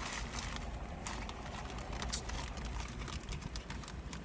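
Chewing and food-wrapper handling, faint scattered clicks and rustles, over a steady low hum inside a car cabin.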